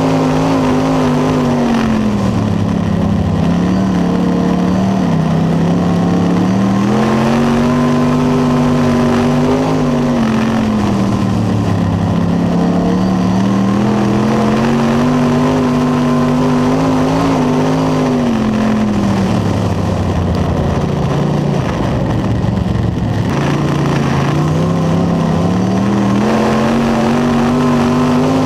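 Late model race car's V8 engine at racing speed, heard from inside the cockpit. Its pitch climbs on each straight and drops back into each turn, rising and falling about every nine seconds as the car laps.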